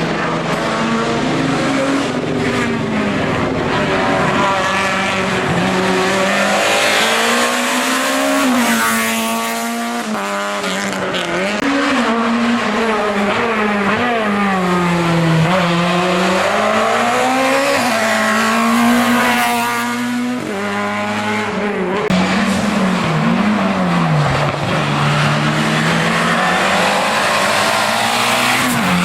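Race car engine at racing speed on a hill-climb run. The revs rise and fall again and again through gear changes, climbing to high peaks about a third and two-thirds of the way in.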